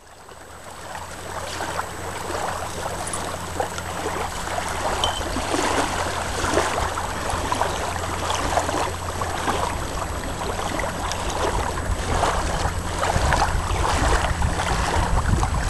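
Small waves lapping at a lakeshore in a steady wind, with wind rumbling on the microphone. The sound fades in over the first two seconds.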